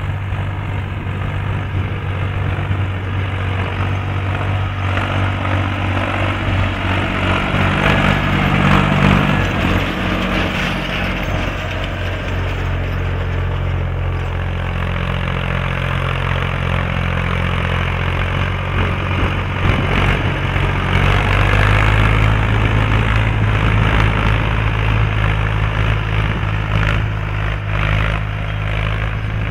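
Three-cylinder diesel engine of an Ursus C-360 3P tractor running steadily under load while it pulls a harrow over dry ploughed ground. Its note shifts and grows deeper and louder about two-thirds of the way through.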